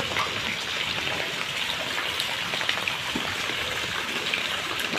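Heavy rain falling steadily on a flooded street: a dense, even hiss of drops splashing into standing water.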